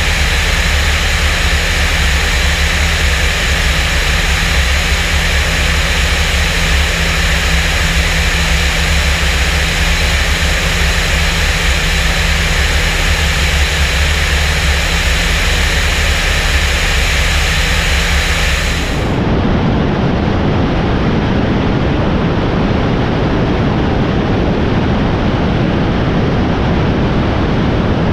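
Europa light aircraft's engine and propeller droning steadily in cruise, with a steady low hum under a hiss of airflow on the wing-mounted microphone. About two-thirds of the way through the sound switches abruptly to a rougher, duller rush of wind and engine noise.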